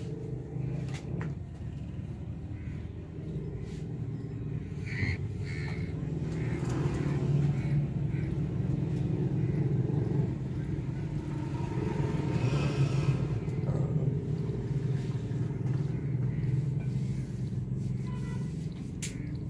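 Old Ruston Hornsby stationary diesel engine running steadily with a low rumble. It grows louder over the first several seconds, then holds.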